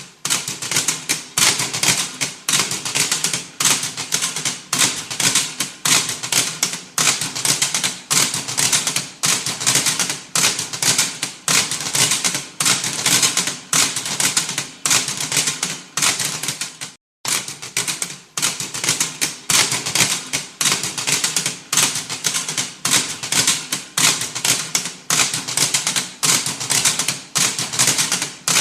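Electric shock zap sound effect: a continuous run of rapid, irregular crackling snaps, with a brief cut to silence a little past halfway.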